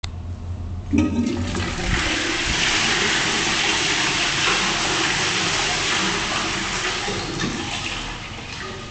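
Toilet flushing: a sharp click about a second in, then a loud rush of water that slowly dies down near the end.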